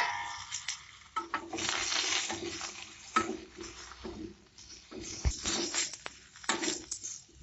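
A steel pot lid clanks at the start with a short metallic ring. Then a metal spatula scrapes the karahi and turns potato pieces frying in oil, in several bouts of scraping and clatter.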